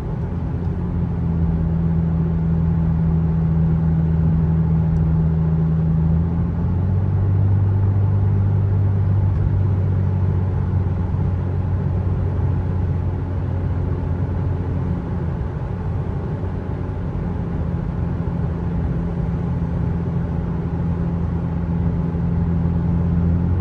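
A Lexus with an axle-back exhaust and muffler delete, cruising with a steady low exhaust drone. The tone steps lower about six seconds in, then holds steady.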